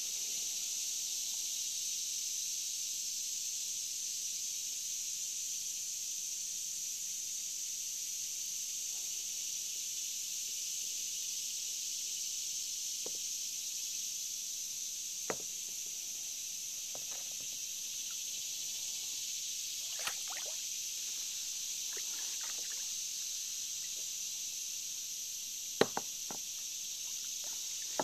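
Steady high-pitched chorus of summer insects, with a few scattered soft knocks; the loudest is a double knock near the end.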